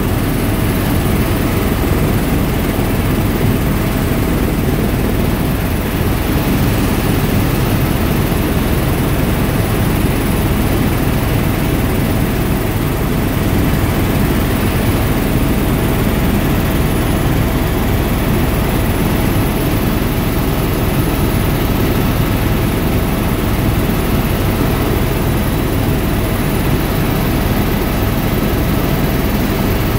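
Helicopter engine and rotor noise heard from inside the cabin in flight: a loud, steady drone with a faint steady whine over it.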